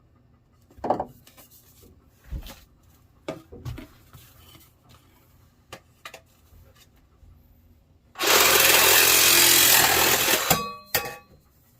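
A few scattered knocks and clatters of handling, then a cordless reciprocating saw (Sawzall) cuts in a single burst of a little over two seconds that starts and stops abruptly.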